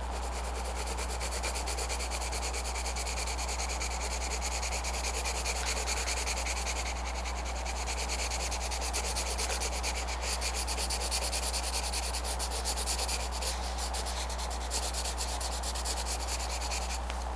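A colored pencil scratching on paper in quick back-and-forth shading strokes, over a steady low hum.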